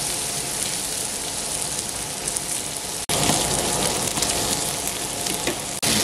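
Pork sizzling on a tabletop barbecue grill, a steady dense crackling hiss that breaks off for an instant twice.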